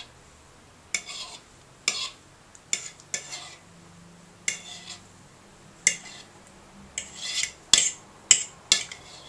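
Metal fork clinking and scraping against a ceramic bowl of raw egg while fishing out a piece of eggshell: about ten short, irregular strokes.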